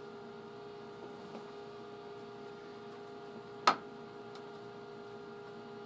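Steady electrical mains hum, with one sharp click a little past halfway through and a much fainter tick just after it.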